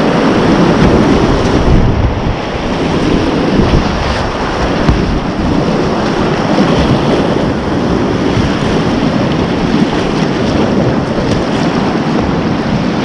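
Whitewater rapids rushing and splashing loudly around a whitewater kayak as it runs through the waves, heard from on board.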